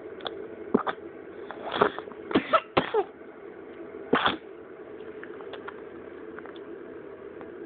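A bout of coughing: about six short coughs in the first four and a half seconds, three of them in quick succession about two and a half seconds in. A steady hum runs underneath.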